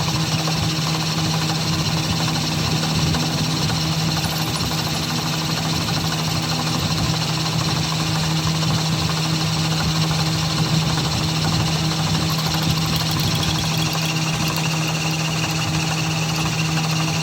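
A workshop machine running steadily, with a constant low hum under a dense, fine rattle.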